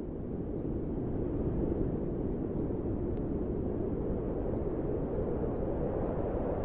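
Steady low rumbling noise with no clear tone or rhythm.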